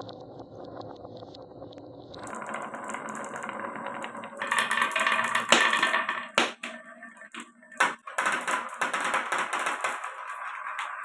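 Marbles rolling and clattering down a wooden marble run. A low rolling rumble comes first; from about two seconds in there is a dense rattle of clicks with several sharp knocks, loudest in the middle.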